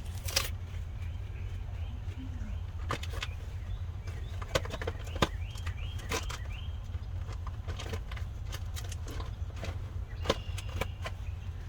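Greasy gloves being peeled off the hands: scattered sharp snaps and rustles over a steady low hum, with a few short rising chirps in the middle and near the end.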